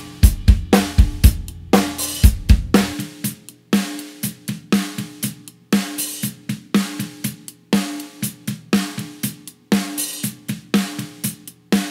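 Playback of a recorded drum groove: snare hits with a pitched ring, along with cymbals and bass drum, heard through a compressor blended 50/50 with the dry signal (parallel compression). About three seconds in, the deep low end drops out and the snare and cymbals carry on.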